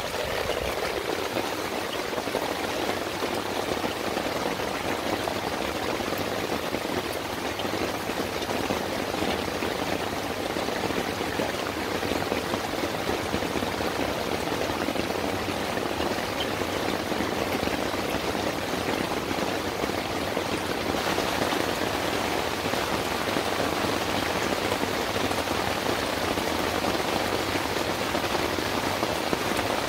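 Steady heavy rain falling on a tent's fly sheet and the gravel around it, heard from under the fly.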